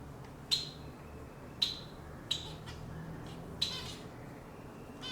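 Cockatiels giving four short, sharp chirping calls, spread about a second apart, over a faint steady low hum.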